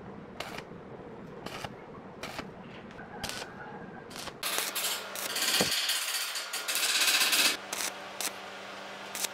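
A few sharp clicks of metal tools on a steel drum, then, about halfway in, an electric arc welding with a stick electrode starts. It crackles and sizzles loudly for about three seconds over a steady hum, then breaks into scattered crackles.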